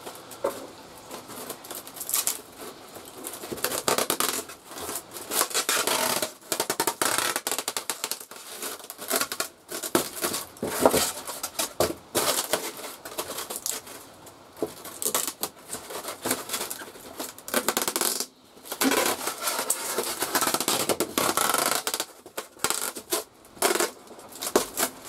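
Adhesive tape being pulled off the roll and rubbed down onto foam pipe-insulation sections to join them, in irregular scraping and crackling bursts with short quieter gaps.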